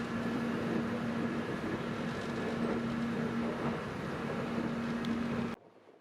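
Cabin noise of an electric airport rail-link train in motion: a steady running rumble with a constant low hum, cutting off suddenly about five and a half seconds in.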